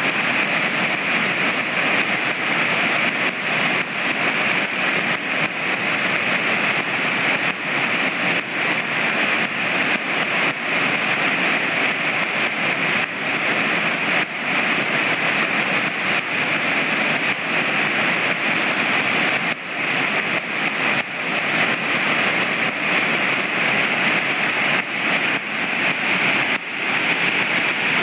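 Waterfall: water falling and rushing in a loud, steady hiss-like roar that does not let up.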